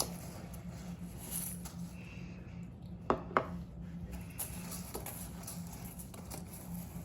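Spoon stirring Coco Pops cereal into melted chocolate in a mixing bowl: soft rustling and scraping, with two sharp clinks about three seconds in, over a steady low hum.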